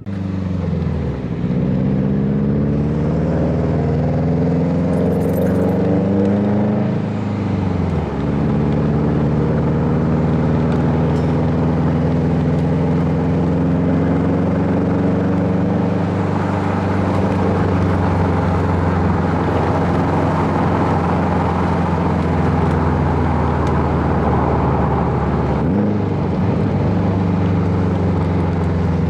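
Subaru STI's turbocharged flat-four, running through a catless downpipe and Tomei exhaust, pulling with rising revs for about seven seconds, then dropping off about eight seconds in and cruising at steady revs, with a brief dip and recovery near the end.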